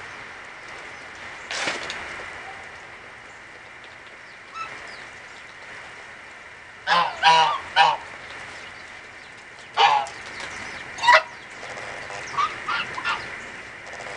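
Geese honking: three quick loud honks about halfway through, two more single honks a few seconds later, then a few softer calls near the end.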